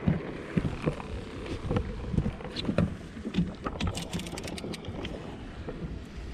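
Irregular knocks, thumps and clatter of someone moving about and handling fishing rods in an aluminum jon boat, with a quick run of sharp clicks about four seconds in.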